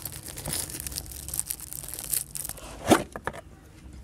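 Gold gift-wrap paper being torn and crumpled as a present is unwrapped: a crackling rustle of many small tears, with one louder crack just before three seconds in.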